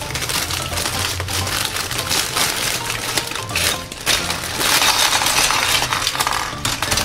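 Clear plastic bag crinkling as hard plastic marble run track pieces are shaken and tipped out of it, the pieces clattering and clinking onto a pile. The clatter is busiest about four to six seconds in.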